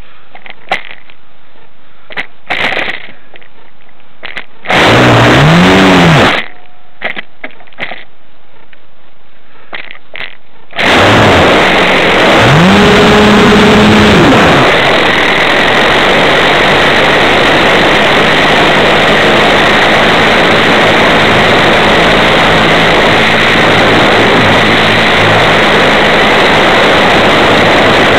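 The motor of an RC P-51 model, heard from a camera on the plane: a few small clicks, a short burst of power about five seconds in that spins up and dies away, then about eleven seconds in it starts again, winds up and runs at high power with loud, steady propeller and rushing-air noise to the end.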